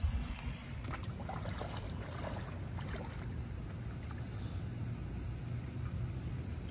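Shallow water sloshing and splashing around a man's legs and hands as he wades and bends into the water, with a few brief splashes in the first half, over a steady low rumble.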